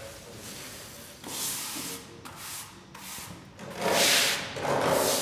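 Stiff-bristled push broom sweeping a wet floor in about five scraping strokes, growing louder, the loudest near the end.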